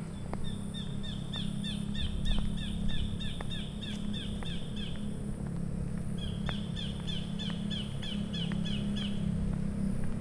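A bird calling in two long runs of short, quickly repeated chirps, about three a second, with a pause of about a second between the runs, over a steady low hum.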